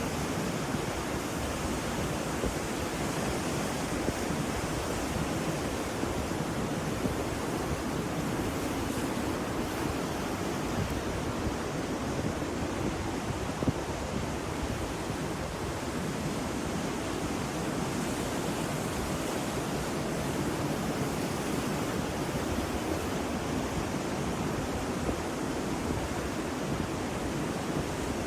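Ocean surf with a steady rushing wash of waves and little rise and fall.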